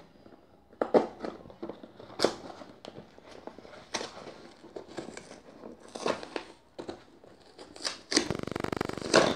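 Hands opening a taped cardboard parcel: scattered rustles, crinkles and taps of cardboard and paper, then about a second of rasping tearing near the end.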